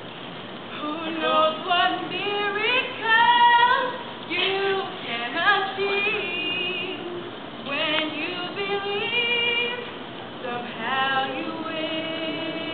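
A young woman singing solo without accompaniment, quick runs of notes climbing and falling between longer held notes.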